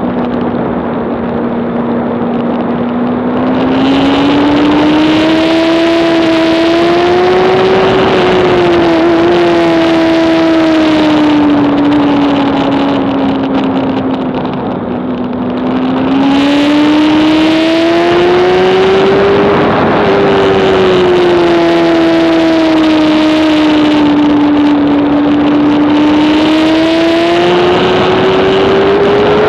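Honda CBR600RR inline-four racing engine at high revs, its pitch climbing and easing off in long smooth sweeps as the throttle is worked. Wind rushes loudly over the microphone for two long stretches.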